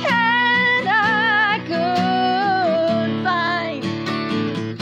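A woman singing held notes with vibrato over a strummed acoustic guitar; her voice stops near the end, leaving the guitar ringing on.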